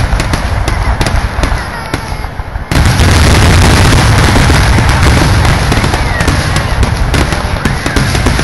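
Aerial fireworks shells bursting in quick succession: a dense run of bangs and crackles over a deep rumble. The noise eases for a moment, then jumps back up sharply just before three seconds in and stays loud.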